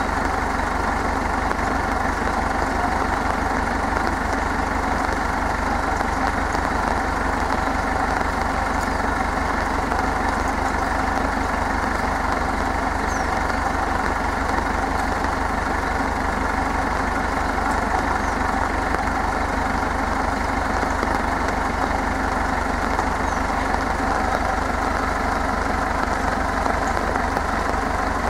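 Tractor engine idling steadily, an even, fast low pulse that does not change.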